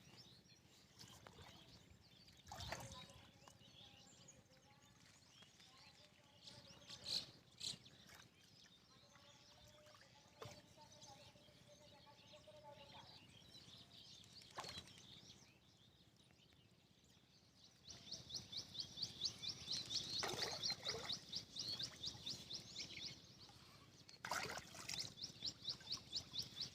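Quiet outdoor ambience with a few scattered soft knocks. About two-thirds of the way in, a rapid high-pitched chirping trill starts and keeps going.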